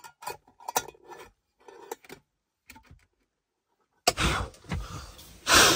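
Small clicks and scrapes as a lid is set and twisted onto a glass jar candle to snuff it. After a short pause come several loud puffs of breath, blowing out candles, the loudest near the end.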